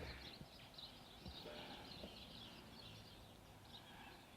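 Near silence with faint birdsong in the background.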